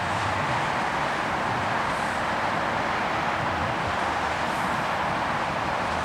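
GO Transit commuter train making a steady rushing noise with no distinct engine note.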